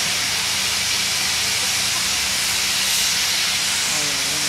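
Steam locomotive venting steam with a loud, steady hiss.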